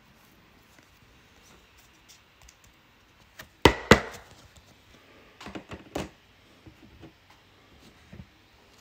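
Sharp clicks and taps of hard plastic as a trading card in a rigid plastic toploader is handled and set into a clear plastic card stand on a table. The two loudest clicks come close together a little under four seconds in, with a few lighter taps about two seconds later.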